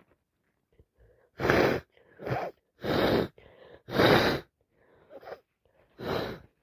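A person with a heavy cold sneezing several times in quick succession, about five sneezes with short breaths between them.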